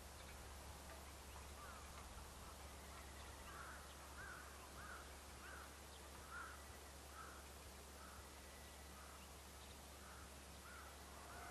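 A crow cawing faintly, a steady series of about a dozen short caws, roughly three every two seconds, starting a few seconds in.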